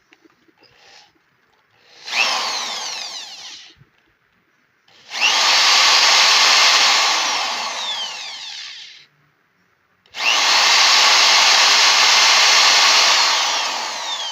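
Skil half-inch electric drill run in three trigger pulls, one short and two longer. The motor whines up sharply at each pull and winds down in a falling whine when it is released. The last run is still going at the end.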